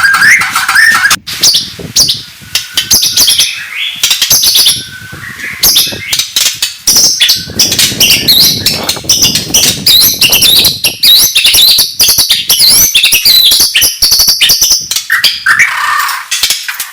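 White-rumped shama (murai batu) singing a loud, fast, varied song of short whistled and chattering notes, many sweeping up or down, packed closely with sharp clicks between them.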